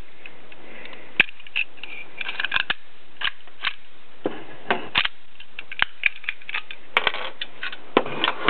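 Restored mortise locks being worked by hand with a key: irregular metallic clicks and clacks of the key, bolt and latch, some with a brief metallic ring.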